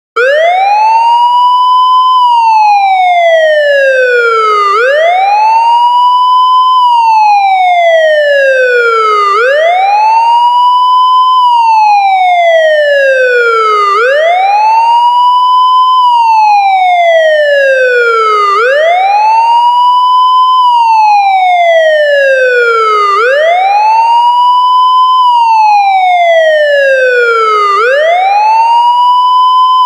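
Loud police car siren in wail mode: a single tone sweeping up quickly for about two seconds and then gliding down more slowly, repeating about every four and a half seconds without a break.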